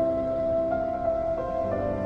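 Background music of held notes that change pitch every second or so.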